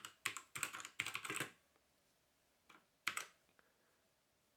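Keys of a mechanical keyboard with brown switches being pressed in quick flurries: a rapid run of keystrokes for about a second and a half, a few more presses about three seconds in, then the typing stops.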